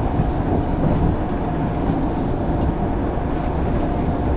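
Running noise inside a Shonan Monorail suspended monorail car in motion: a steady low rumble with a faint steady hum above it.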